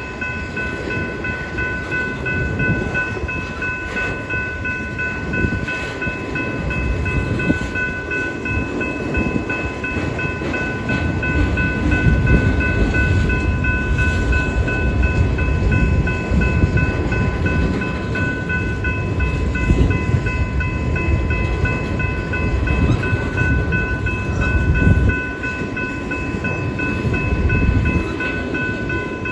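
Freight train of autorack cars rolling through a grade crossing: a continuous rumble and clatter of wheels on rail that swells and dips as the cars pass. Over it, the crossing's warning bell rings steadily.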